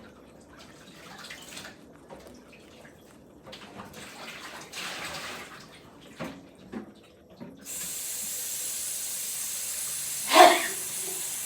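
Faint handling noises and a few light knocks, then a tap turned on about two-thirds of the way through, running with a steady hiss. Near the end a woman gives one short, loud sneeze over the running water.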